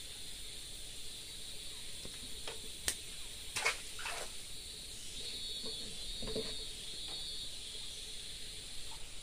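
A small fish is thrown back into the river and lands with a splash about three and a half seconds in, over a steady high insect drone.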